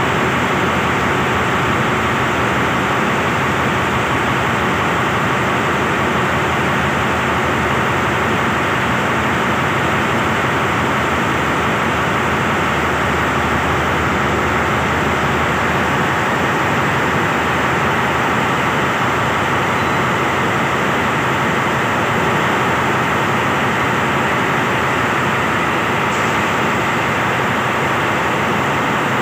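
A passenger train rolling past a station platform in heavy rain: a steady, unbroken rumble and rushing noise of the coaches' wheels on the rails mixed with the rain.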